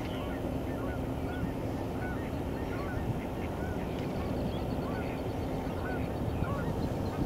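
Birds calling over and over in short chirps and squawks, with a fast ticking trill for about a second and a half midway, over a steady low rumble and a faint hum.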